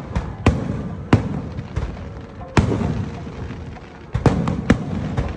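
Aerial fireworks shells bursting: a string of sharp bangs at uneven intervals, the loudest about a second and two and a half seconds in, and a quick cluster of several just after four seconds, with a low rumble ringing on between the bangs.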